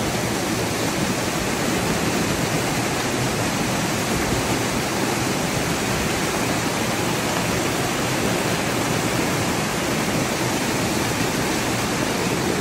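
Water pouring over a small stepped cascade into a shallow pool: a steady rush of falling, churning water.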